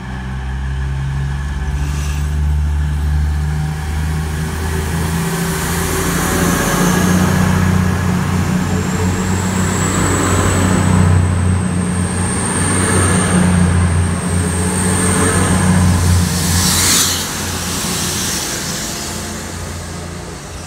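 Class 222 Meridian diesel-electric train pulling out of the station: its underfloor diesel engines run up under power as the carriages pass close by, with a faint high whine over the top. Near the end the sound falls away as the train draws off.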